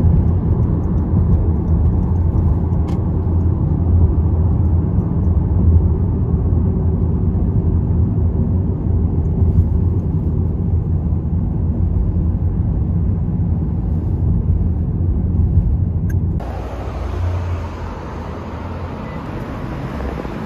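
Steady low rumble of a car driving. About sixteen seconds in it cuts abruptly to a quieter, hissier background.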